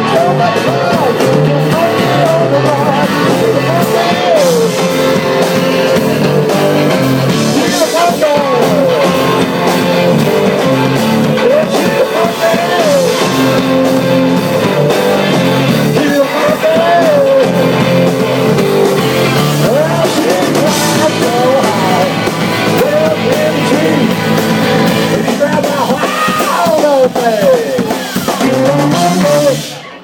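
Live blues-rock band: electric guitar and drum kit playing loudly together, with gliding guitar or vocal lines. The music cuts off abruptly just before the end.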